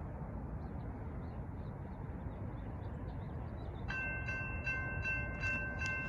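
A railroad crossing bell starts ringing about four seconds in, with regular strikes about twice a second, as the crossing signals activate for an approaching train. Under it is a steady low rumbling noise.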